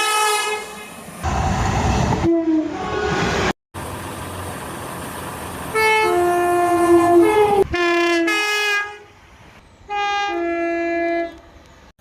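Locomotive air horns sounding a series of blasts from different clips cut together. Each blast is a chord of several steady notes lasting one to two seconds, about five in all. Between them are stretches of train running noise, the loudest and longest about two seconds in and again from about four to six seconds.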